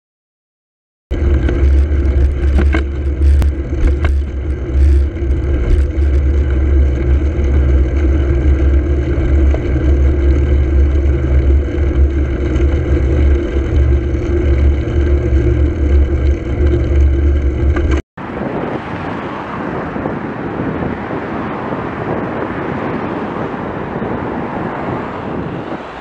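A loud steady drone with a deep hum and several held tones, which cuts off abruptly about two-thirds of the way through. It gives way to an even rush of wind noise on the microphone and road noise from riding.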